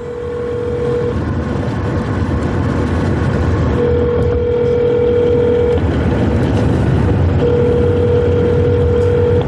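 Phone ringing out: a steady ringback tone sounds three times, about two seconds each, over the low rumble of a car driving.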